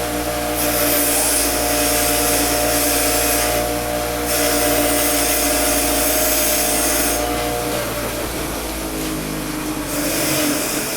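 Motor-driven wire wheel running with a steady whine, its bristles scrubbing the diecast metal in three hissing passes separated by short gaps; the hum thins out near the end.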